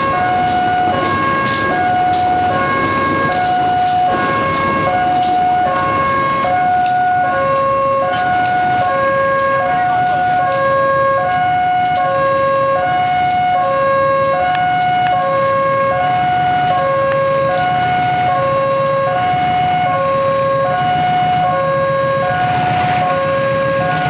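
Railway level-crossing warning alarm sounding a steady two-tone electronic signal, alternating between a higher and a lower tone about once a second: a train is approaching. Under it, the low engine drone of an approaching CC201 diesel-electric locomotive grows louder in the second half.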